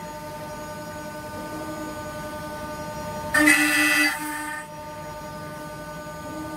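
Four-axis, 16-spindle CNC wood router running, its spindles giving a steady whine made of several fixed tones. About three and a half seconds in, the sound grows much louder for about a second as the cutters bite into the wooden chair legs, then settles back to the whine.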